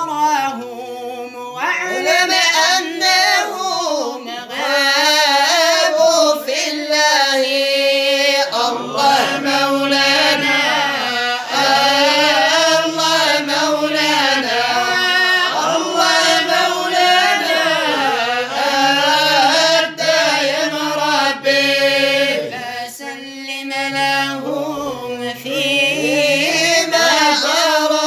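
A man singing an Islamic devotional praise song (madih nabawi) in long, drawn-out notes whose pitch slides and ornaments up and down without pause.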